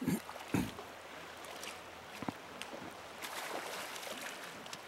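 River water running over gravel shallows, with splashing from a hooked king salmon thrashing at the surface near the landing net, a fresh fish not yet tired. Two dull thumps sound right at the start.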